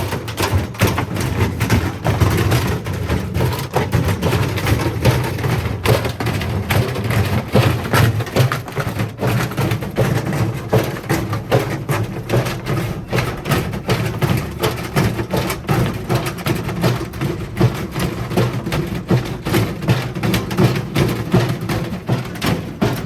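Indesit washing machine drum turning with bricks inside, the bricks knocking and thudding against the drum in a rapid, continuous run of impacts over a steady low hum.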